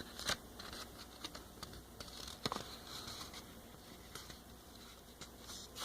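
A sheet of paper being folded and creased by hand: faint scattered rustles and light taps and ticks.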